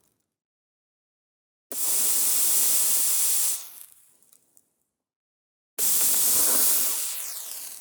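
Two sudden bursts of hissing fire, each starting abruptly and lasting about two seconds; the second fades out slowly near the end.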